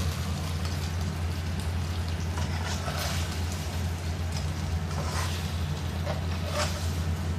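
Spatula scraping a stainless steel wok as stir-fried meat is scooped out onto a plate, a few short scrapes about three, five and six and a half seconds in. Under them is a steady low hum.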